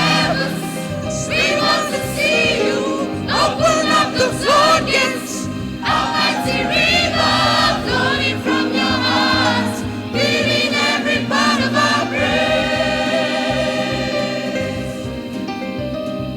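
Gospel choir singing a worship song, with voices gliding up and down over steady sustained low accompaniment.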